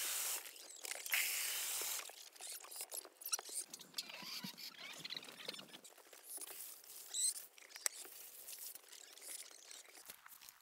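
Water gushing from an IBC tote's tap into a plastic bucket, cutting off abruptly about two seconds in. After that come scattered faint clicks and light rustling.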